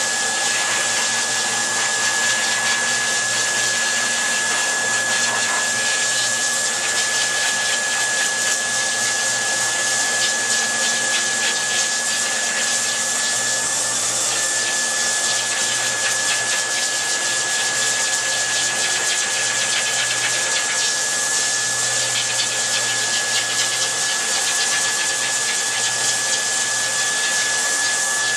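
Pet grooming dryer blowing steadily, with a constant high whine from its motor.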